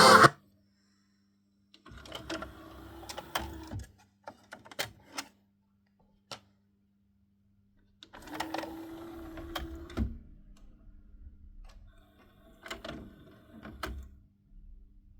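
Grundig M100-CDC three-disc CD changer mechanism running in three short bursts, a motor whine with clicks and knocks, after the music stops.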